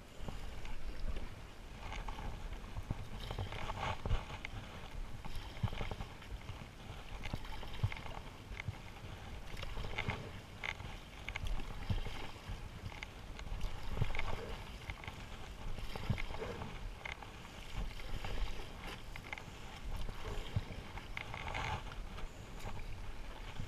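Stand-up paddleboard paddle strokes: the blade dipping and splashing through lake water about every two seconds, with water washing along the board.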